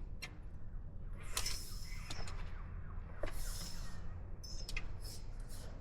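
Irregular scuffs and knocks, roughly one a second, over a low steady rumble: footsteps and handheld camera handling while walking down stone steps.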